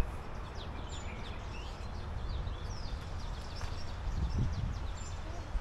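Several birds chirping in short, quick calls, mostly in the first half, over a steady low rumble.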